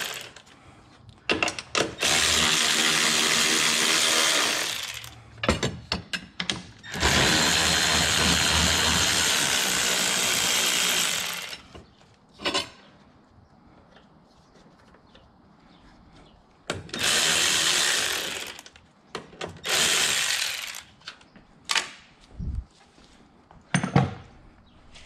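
Cordless electric ratchet whirring in several runs of a few seconds each, with short blips between, as it spins out the bolts at the top of a car's front strut.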